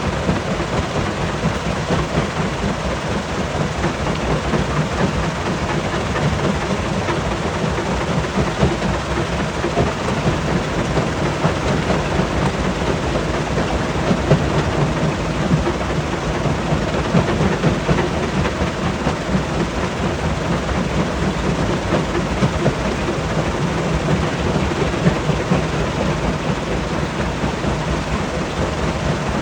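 Large stone crusher running under load: a steady heavy rumble dense with fine crackling and clattering as rock is broken.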